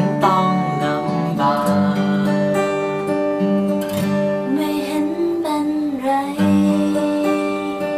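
A song led by strummed acoustic guitar, in a passage without sung lyrics, with a held melody line over the chords.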